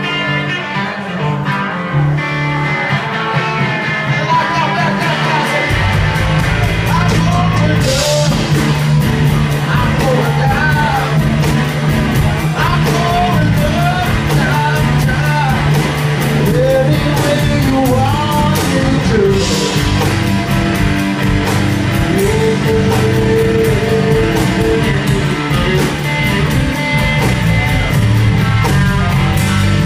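Live rock band playing: electric guitars, drums and a singer. The bass and full drums come in about six seconds in, with cymbal crashes around eight and twenty seconds in.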